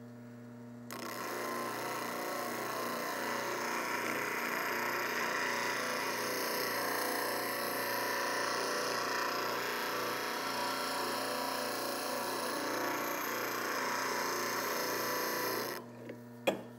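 Steel spindle roughing gouge being ground on a running Rikon low-speed bench grinder: a steady grinding noise starts about a second in and stops about a second before the end, over the grinder motor's steady hum. A short click near the end.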